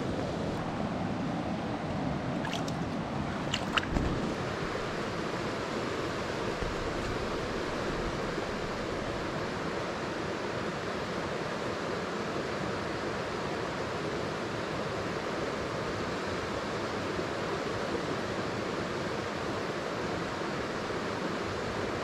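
Steady rush of a small mountain creek running over rocks and riffles, with a couple of brief clicks about four seconds in.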